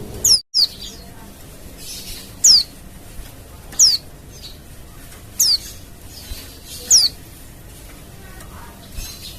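Female white-eye (pleci) calling: short, high, down-slurred calls repeated about every second and a half, two in quick succession near the start. The sound briefly cuts out just after the start.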